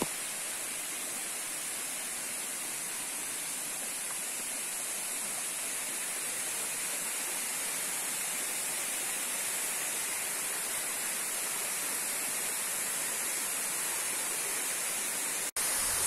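Steady rushing of a waterfall: an even, unbroken hiss of falling water. It cuts out for an instant near the end.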